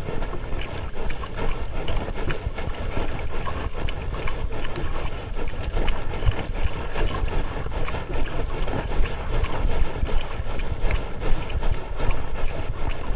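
Wind buffeting the microphone over the slap and splash of choppy waves against a small boat's hull, with irregular knocks.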